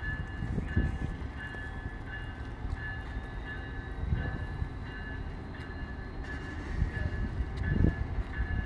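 Amtrak Capital Corridor passenger train running with a low rumble, while a bell rings steadily in quick repeated strokes.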